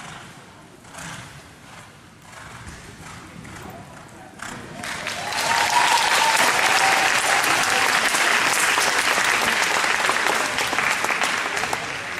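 Spectators clapping loudly for a show-jumping horse and rider, the applause starting about four and a half seconds in and holding steady. Before it, softer thuds of a horse's hooves cantering on the arena footing.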